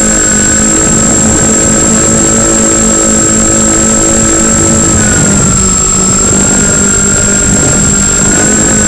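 The twin electric motors and propellers of a Multiplex Twinstar II RC plane running in flight, picked up onboard with wind rush: two close whines that shift in pitch about five seconds in, over a steady high whine.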